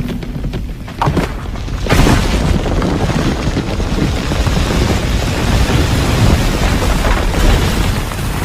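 Film destruction sound effect: a hit about a second in, a heavier impact about two seconds in, then a deep, sustained rumble with a dense hiss of debris over it.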